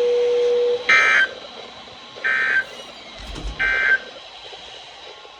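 Emergency Alert System end-of-message signal. A steady low tone cuts off just under a second in, then three short bursts of warbling digital data follow, about a second and a half apart. A brief low thump falls between the second and third bursts.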